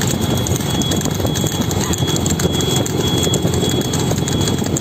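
A bullock cart going along an asphalt road: a pair of bullocks' hooves clip-clopping and the spoked wooden wheels rolling, under steady road and wind noise.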